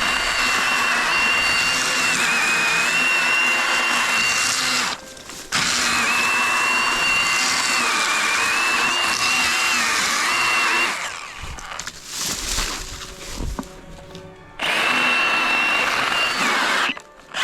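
Milwaukee M18 FUEL 18V handheld mini chainsaw running in three spells, a high whine whose pitch sags now and then as the chain loads up. It stops for about half a second around five seconds in, drops away for a few seconds after ten seconds, and stops again briefly near the end.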